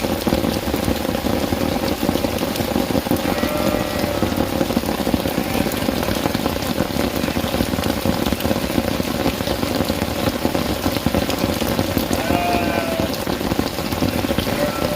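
Steady heavy rain falling. Two short, faint animal calls rise above it, one about four seconds in and one near twelve seconds.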